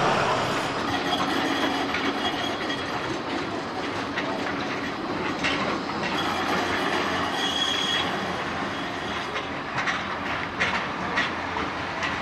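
Trams running along street track: a steady rail rumble with two brief high wheel squeals, and a run of sharp wheel clicks on the track near the end.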